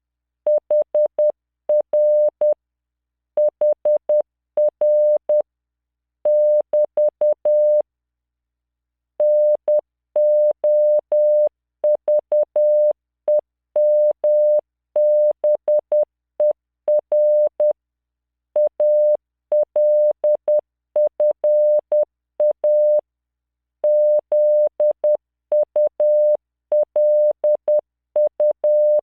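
Morse code sent at 10 words per minute as a steady 600 Hz computer-generated tone from CW training software. Short and long beeps are grouped into letters, with longer pauses between words.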